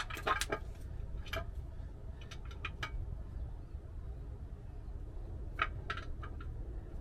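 Scattered light metallic clicks and taps from brake parts being handled and set down, a few in a cluster early, then a pause, then a few more near the end, over a low steady rumble.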